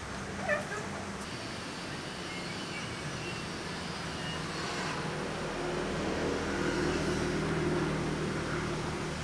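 A motor vehicle's engine in the distance swells and fades, loudest a little past the middle, over a steady low hum and background noise. A short high squeak sounds about half a second in.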